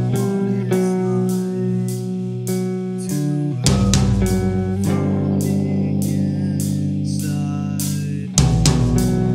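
Metalcore band playing live with no vocals: electric guitar notes over bass guitar and drums, with regular cymbal hits. The low end comes in heavily about four seconds in and again near the end.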